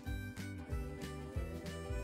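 Background music with a steady beat and a repeating bass line.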